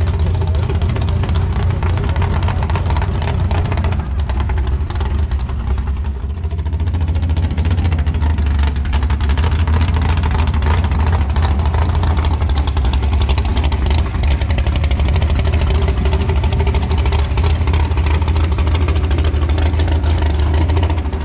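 Car engine running steadily, a loud, even low rumble.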